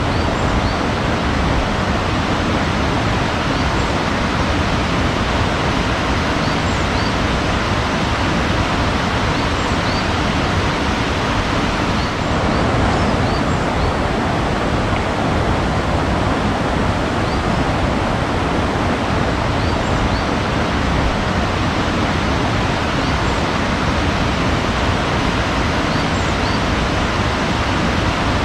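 Steady, unbroken rush of flowing or falling water, like a waterfall or fast stream, with faint short bird chirps scattered throughout.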